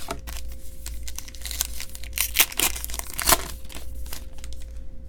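Crinkling and rustling of a foil trading-card pack and cards being handled, with irregular crackles and two louder snaps about two and a half and three and a quarter seconds in.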